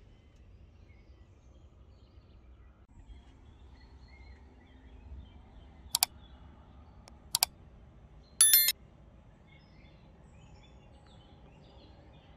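Interface sound effects of a like-and-subscribe animation: a mouse click about six seconds in, a quick double click a second or so later, then a short bell chime near eight and a half seconds. Underneath is faint outdoor ambience with scattered bird chirps.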